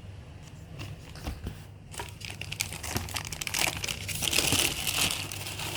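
Fan packaging crinkling and rustling as the parts are unwrapped and handled by hand, starting about two seconds in and getting louder towards the end.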